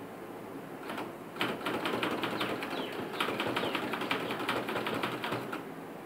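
Manual typewriter typing: one key strike about a second in, then a fast, unbroken run of sharp keystrokes that stops near the end.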